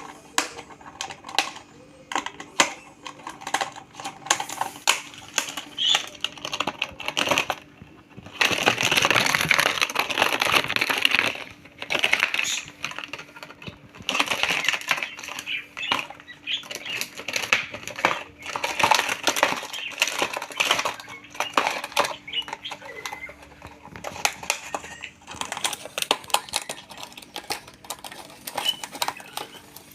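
Rainbow lorikeets clicking and tapping on a hard surface in rapid, irregular bursts, with short chattering calls. A louder, noisier stretch of about three seconds comes around nine seconds in.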